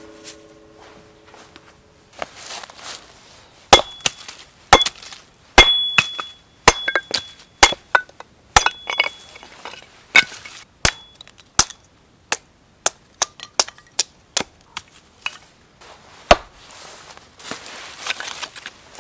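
A series of sharp chopping strikes with a tool, irregularly spaced at about one or two a second, some followed by a short high ring.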